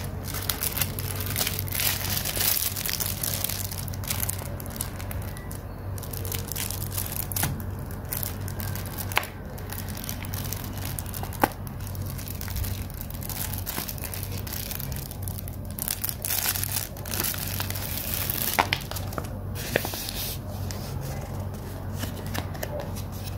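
Plastic packaging crinkling and rustling in the hands as a toy-lollipop wrapper is opened and a sticker sheet in a clear plastic sleeve is handled, with scattered sharp clicks and crackles over a steady low hum.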